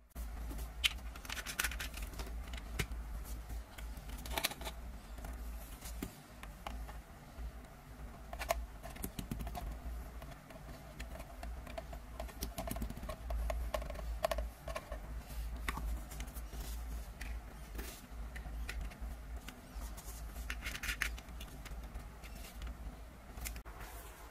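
Small clicks and rattles of a plastic toy water gel revolver being handled while gel beads are tipped into its loader from a bottle, over a steady low hum.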